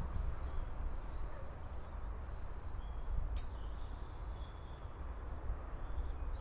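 Wind buffeting the camera's microphone as a low, fluttering rumble, with faint bird chirps in the background and a single click about halfway through.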